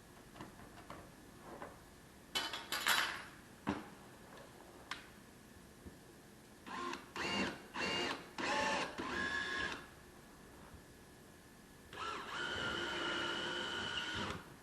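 Power drill running in short bursts, about five in quick succession, then one steady run of about two and a half seconds near the end, with a few light clicks and knocks in between, as brackets are fixed for mounting heaters.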